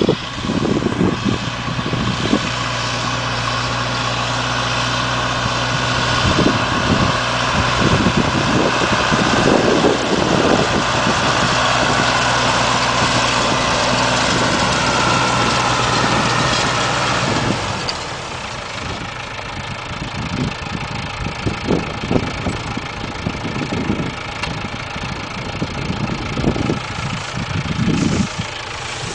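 Tractor engine running steadily during hay baling, a low even hum with some irregular low thumps; it drops noticeably in level about two-thirds of the way through.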